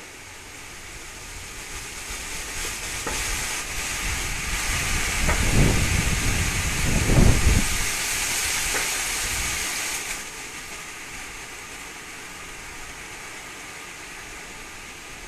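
A gust of wind rushing through garden foliage and buffeting the microphone. It builds over a few seconds, rumbles hardest about halfway through, then drops away suddenly about ten seconds in to a lower steady rush.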